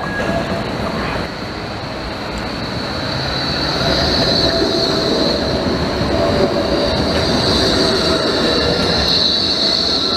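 A low-floor articulated tram passes close by, its wheels running on the rails with a steady high-pitched squeal that grows louder from about four seconds in.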